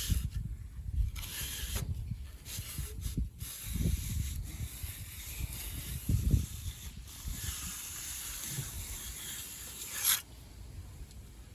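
A hand tool scraping and rubbing through wet concrete while a slab is worked by hand, in irregular strokes that stop about ten seconds in. Wind rumbles on the microphone underneath.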